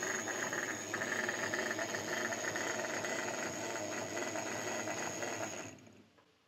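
OO gauge Class 08 shunter model running along the track under power, its small electric motor and gears whirring with a steady high whine as it pushes another locomotive; the noise stops about six seconds in as it comes to a halt.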